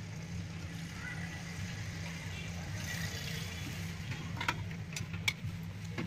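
A steady low hum with a faint hiss, and a few sharp clicks in the second half, heard during desoldering of a phone charging connector.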